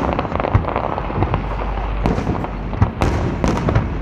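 Fireworks display: a dense, irregular string of bangs and crackles from shells bursting, several a second.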